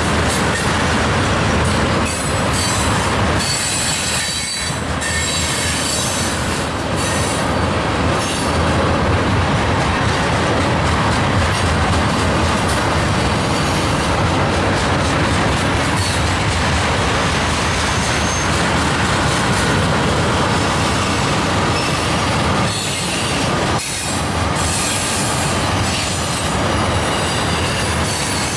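Steel wheels of railroad tank cars rolling past close by: a steady loud rumble and clatter on the rails, with high wheel squeal at times.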